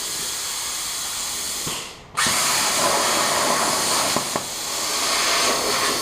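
CNC plasma cutter torch hissing; the hiss drops out for a moment about two seconds in, then the arc restarts and cuts with a louder, rougher hiss, with two sharp clicks a little later.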